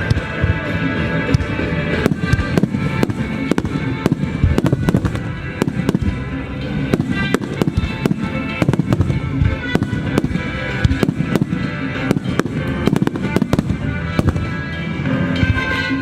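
Star mine fireworks barrage: aerial shells bursting in rapid, irregular bangs, several a second, over loud music.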